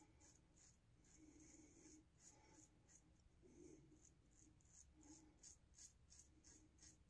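Very faint scratchy scraping of a three-piece safety razor cutting lathered neck stubble with the grain, in short strokes about two a second.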